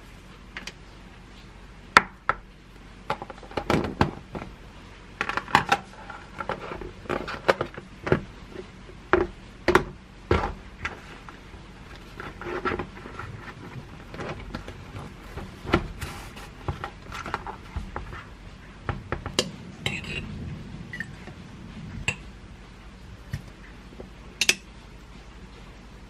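Lunch containers being handled on a countertop: plastic lids fitted and clicked shut, containers set down and stacked, giving many sharp clicks and knocks at irregular intervals.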